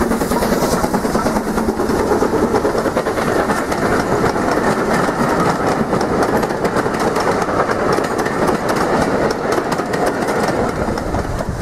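OO gauge model steam train, a Bachmann 9F locomotive hauling coaches, running along the layout track: a steady rolling rattle with many small clicks from the wheels on the rails and rail joints.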